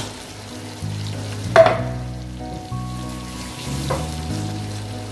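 Chicken and freshly added tomato juice sizzling in a pot while a wooden spatula stirs. The spatula knocks sharply against the pot about a second and a half in, and more softly near the end. Quiet background music with held low notes plays underneath.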